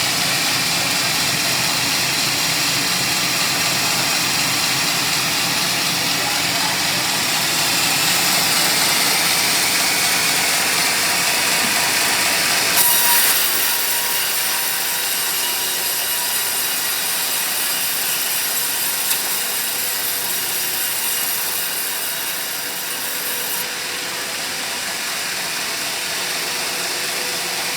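Homemade sawmill blade cutting through a teak log over its running motor, a steady sawing noise. For about ten seconds from around the middle the cut takes on a brighter, hissier edge.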